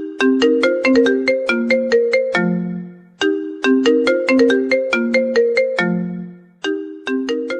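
Phone ringtone tune: a melody of quick, struck, bell-like notes, the same short phrase repeating about every three and a half seconds.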